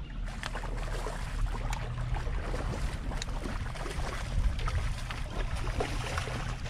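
Steady low rumble of wind and water around a small boat on a river, with a few faint clicks and light splashes.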